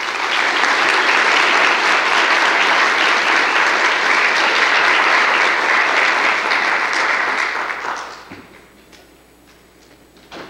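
Audience applauding steadily for about eight seconds, then dying away.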